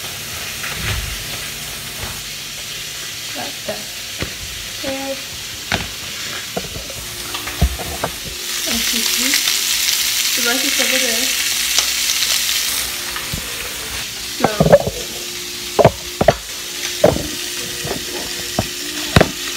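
Diced ham sizzling as it fries in a nonstick frying pan, the sizzle swelling louder for a few seconds in the middle. Several sharp knocks and clatters come near the end.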